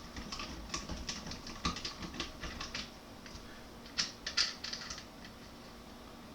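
Quick, irregular light clicking from a torque screwdriver backing out the screw that holds a Ruger 10/22's action in its stock, with a few louder clicks about four seconds in; the clicking stops about five seconds in.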